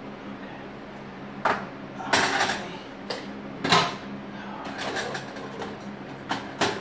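Pots, pans and utensils being handled on a kitchen stovetop: several sharp knocks and short clatters, the loudest about two and four seconds in, over a steady low hum.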